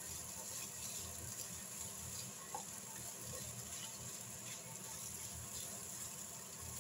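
Fried rice sizzling in a nonstick frying pan while a spatula stirs and tosses it, with scattered faint scrapes and taps of the spatula against the pan.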